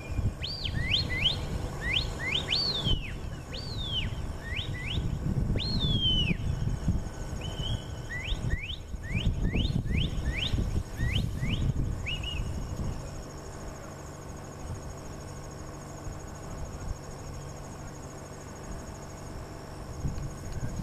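A handler's shepherd whistle commands to a working border collie: a quick run of short, sharp rising whistles, some rising then falling, that stops about twelve seconds in. Crickets chirr steadily underneath.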